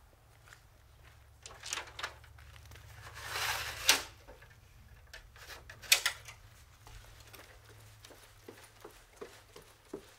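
Aluminium wheelchair ramp being handled and set into place: a few light clicks and knocks, a rush of noise that swells and ends in a sharp metal clack about four seconds in, then another sharp knock about six seconds in.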